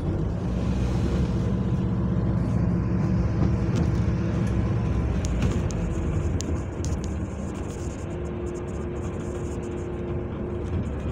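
Alexander Dennis Enviro400 hybrid double-decker bus's engine running under way, heard from the upper deck as a steady low drone. The drone is strongest in the first half and eases off, with a higher steady hum coming in near the end. Light rattles tick now and then.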